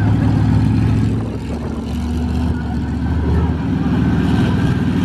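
Monster truck engine running with a deep, steady note as the truck tows a crushed car on a chain; the engine eases off about a second in and picks up again a couple of seconds later.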